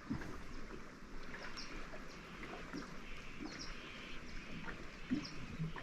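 Quiet outdoor ambience at a lake, with scattered faint short chirps and a few small knocks or clicks.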